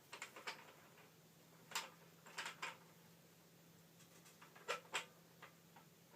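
Faint, sharp metallic clicks and taps in small clusters as a bicycle headset press is re-positioned and wound down onto the headset cups. A faint steady low hum comes in just after the start.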